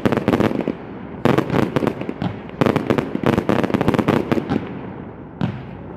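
Fireworks display: aerial shells bursting, with clusters of rapid crackling reports about every second or so and a low rumble of booms and echo between them.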